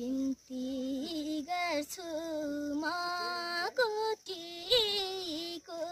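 A 12-year-old girl singing a Nepali song unaccompanied, holding long notes with short breaks between phrases.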